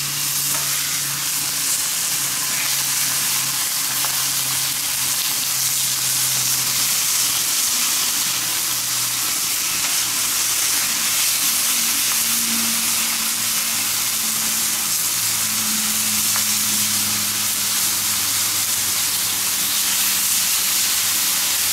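Beef entrecôte steaks sizzling steadily on a hot steel fire plate (plancha) over a wood fire as they are turned over with tongs. A faint low hum runs underneath.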